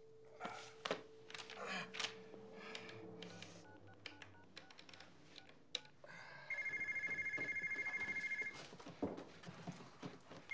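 A telephone dial tone hums for the first few seconds while the number is dialed, with clicks from the handset and keys. About six and a half seconds in, another phone's electronic ringer trills for about two seconds, then starts ringing again at the very end.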